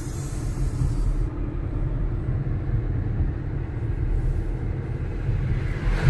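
Steady low road and engine rumble of a moving car, heard from inside the cabin, with a brief high hiss during the first second.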